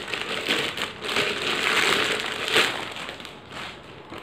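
Clear plastic packaging bag crinkling and rustling as a stainless steel milk pot is pulled out of it by hand. The crinkling is busiest in the first two and a half seconds, then eases off.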